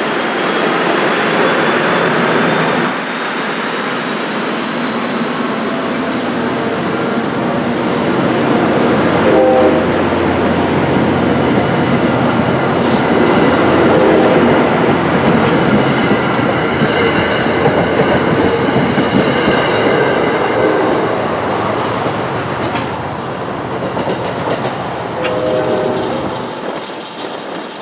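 NJ Transit Comet V passenger coaches rolling past at close range, wheels clacking over the rails, with the noise easing as the train pulls away near the end.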